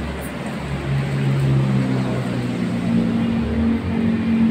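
Low steady hum of a nearby motor vehicle engine running. Its pitch steps up about halfway through.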